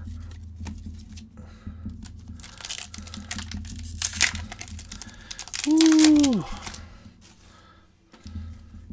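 Crinkling and tearing of a hockey card pack's wrapper as it is opened, with a few sharp crackles. About six seconds in comes a short hum that falls in pitch.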